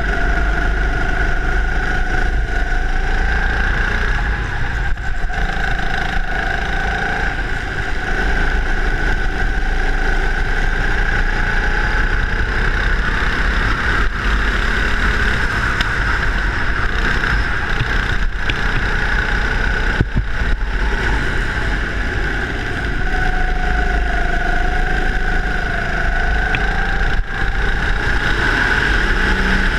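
Go-kart engine running at speed, heard from on board the kart, its pitch rising and falling gently with the throttle through the corners, over a steady low rumble.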